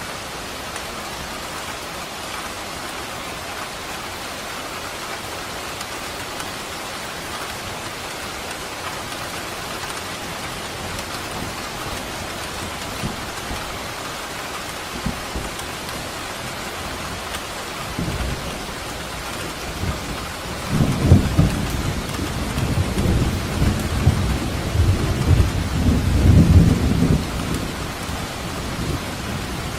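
Steady rain falling, with a roll of thunder rumbling in about two-thirds of the way through, swelling twice before it fades back under the rain.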